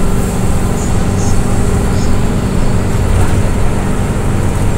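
Cabin noise inside a moving green minibus: the engine runs at a steady note under a constant haze of road and tyre noise.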